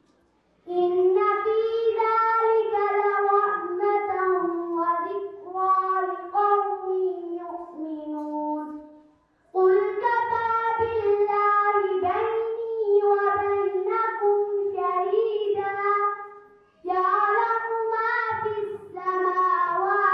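A girl singing solo and unaccompanied into a microphone. Her melody runs in long held phrases, with short breaths between them just after the start, about halfway through, and near the end.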